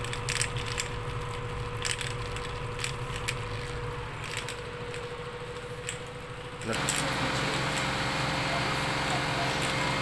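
Washing machine drain pump, out of the machine and wired up for a test, running with a steady hum and scattered light clicks. About seven seconds in, a louder rushing noise suddenly comes in over it.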